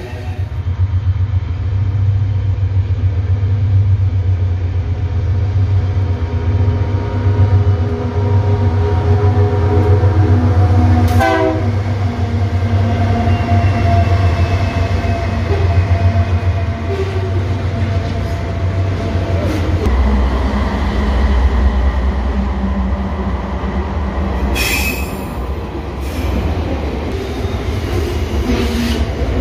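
Rumo diesel-electric freight locomotives passing close by, their engines running with a heavy low drone. The horn sounds as a steady chord for roughly the first eleven seconds, then the rumble deepens as the units roll past, with brief metallic wheel squeals near the end.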